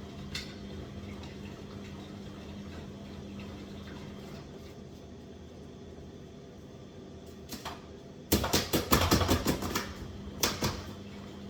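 A tumble dryer's lint filter being handled and knocked against a bin to shake the dust off. There is a single click early, then about eight seconds in a quick flurry of clattering knocks lasting about a second and a half, and a couple more knocks near the end, over a faint steady hum.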